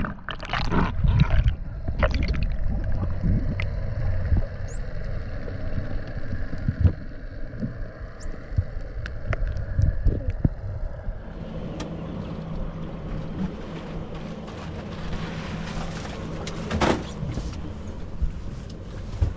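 Muffled underwater rushing and bubbling, heard through a camera's waterproof housing as a free diver goes down. About eleven seconds in, a steady low engine hum from the boat's outboard motors takes over.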